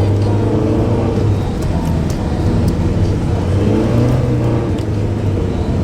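Car engine running at driving speed with tyre and road noise, heard from inside the cabin, on snowy roads. The engine note rises briefly about four seconds in.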